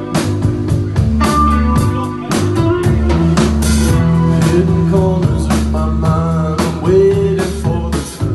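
A band playing a blues-rock song live: guitar over drums, with sustained and bending melody notes.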